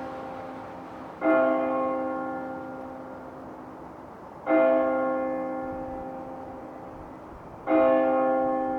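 A single church bell striking the hour of twelve, three slow strokes about three seconds apart, each ringing out and fading before the next.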